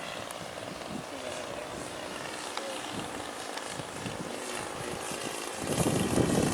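Radio-controlled model airplane's motor and propeller droning in the air, with wind buffeting the microphone, the gusts growing much louder near the end.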